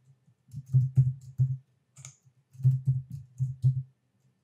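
Computer keyboard keystrokes and mouse clicks, sharp taps in two quick runs of about five strokes each, the first about half a second in and the second from about two and a half seconds in.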